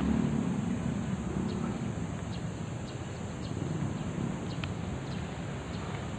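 Steady low outdoor rumble, with faint short high chirps scattered through it.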